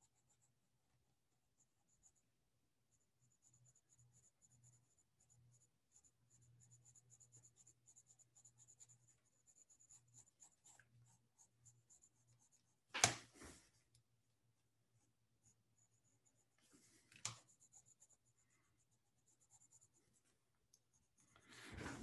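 Faint scratching of a Prismacolor colored pencil shading on paper in short strokes. Two short sharp knocks break in, the louder one a little past halfway and a smaller one a few seconds later.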